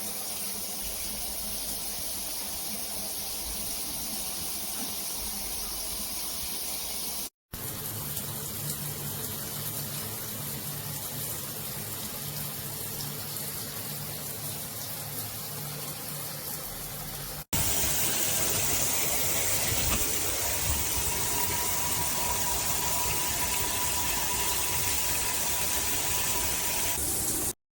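Shower water spraying steadily, heard as three separately cut stretches: about seven seconds, then about ten, then a louder ten-second stretch with a faint steady tone. It cuts off abruptly near the end.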